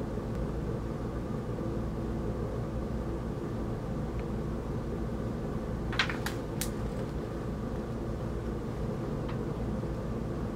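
Steady low background hum. About six seconds in, a magazine page is turned, making a brief cluster of three quick paper snaps and rustles.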